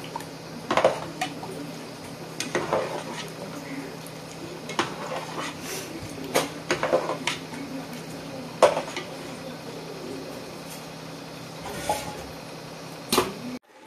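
Perforated metal ladle clinking and scraping against the side of an aluminium pot while stirring rice-flour batter into boiling water: irregular knocks about a second or two apart, over a steady low hum.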